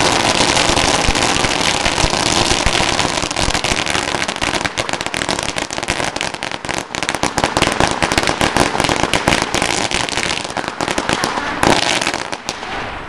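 A 16,294-count roll of firecrackers going off in a dense, continuous crackle. After about four seconds it thins into scattered separate bangs, with one louder bang near the end as the roll burns out.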